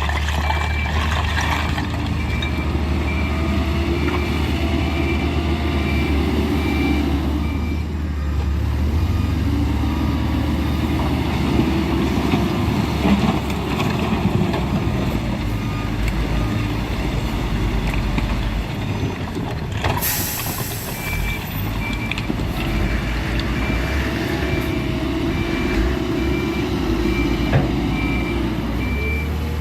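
Hidromek 102B backhoe loader's diesel engine working under varying load, with its reversing alarm beeping steadily about twice a second in two stretches, at the start and again through the last third. A short sharp hiss cuts in about two-thirds through.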